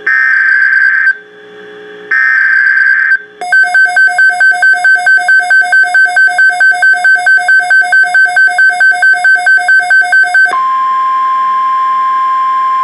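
NOAA Weather Radio SAME alert header: two one-second bursts of digital data screech with a pause between. These are followed by about seven seconds of rapid electronic beeping at about four beeps a second. Near the end the steady 1050 Hz weather radio warning alarm tone begins.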